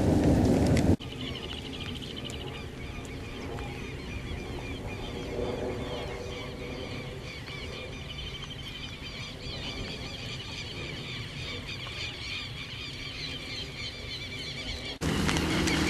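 Rain noise for about the first second, then a sudden cut to many birds chirping and calling over a quieter steady background. Near the end the loud rain-like rush cuts back in.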